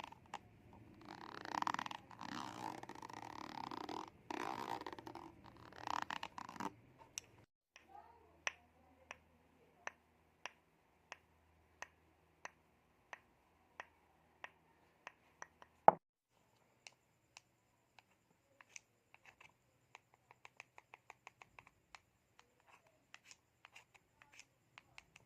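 Close-miked ASMR trigger sounds. A few seconds of soft hissing noise are followed by a long run of sharp clicks, about one every two-thirds of a second, with one much louder click midway; near the end the clicks come in quicker clusters.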